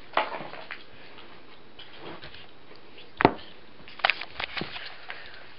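A few sharp clicks and knocks: one just after the start, a louder knock about three seconds in, then a quick run of clicks around four seconds.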